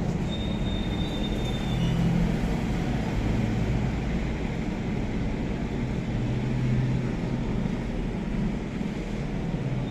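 Microwave oven running with a steady, loud low hum: the abnormal noise of a microwave that is not heating.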